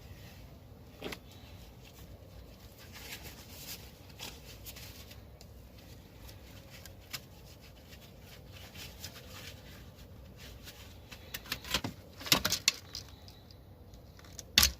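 Scattered clicks and knocks of a clip-fastened part being worked loose by hand during a teardown, with a quick run of sharper clicks near the end and one loud knock just before it ends.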